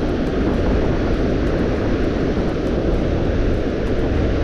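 Strong wind buffeting the microphone: a steady, loud low rumble with no letup.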